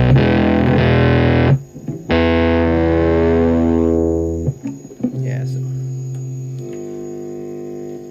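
Electric bass played through a Red Witch Zeus bass fuzz octave pedal at full gain: loud, heavily distorted notes, one ringing out and dying away, then quieter single notes that sustain near the end.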